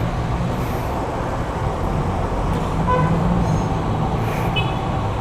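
Honda CG 125's air-cooled single-cylinder four-stroke engine running steadily, with road traffic noise. Two short beeps sound, about three seconds in and again, higher, near the end.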